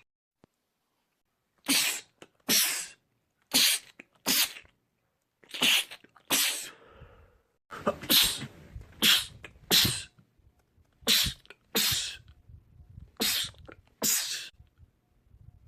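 A man's rapid sneezing fit: about thirteen short, sharp sneezes in quick succession, many in close pairs, starting a second and a half in.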